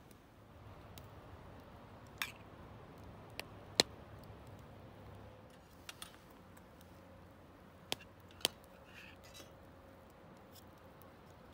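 About seven sharp clicks and snaps at irregular intervals over a faint low hum, the loudest a little under four seconds in.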